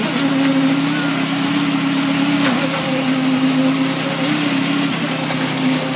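Engine of the concrete-pouring machinery running steadily under load, its pitch sagging briefly twice.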